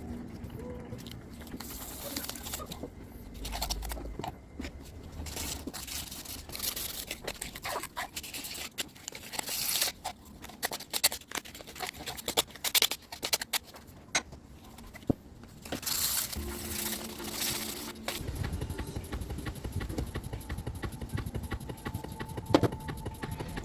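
Irregular scraping and rubbing with scattered clicks and knocks; about three-quarters of the way in, a steady low hum sets in.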